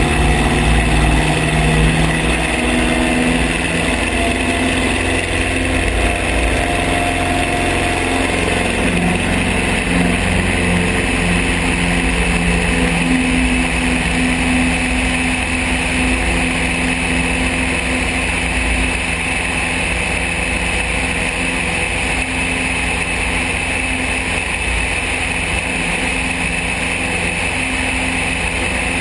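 Van's RV-7 light aircraft's piston engine and propeller at takeoff power, heard from under the wing. The engine note rises in pitch over the first ten seconds or so as the plane accelerates down the runway, then runs steadily through lift-off and the climb.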